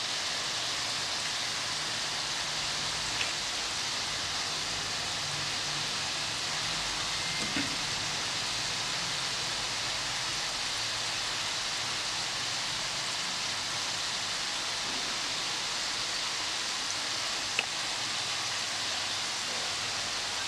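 Chicken pieces with carrots, green peppers and spring onions sizzling steadily in sauce in a pan, with a few light clicks of the spatula against the pan.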